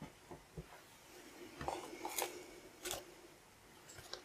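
Faint unboxing handling sounds: a few light knocks in the first second as the keyboard-like editing console is set down on the desk, then paper and cardboard rustling with a couple of sharp clicks as printed cards are taken out of the foam-lined box.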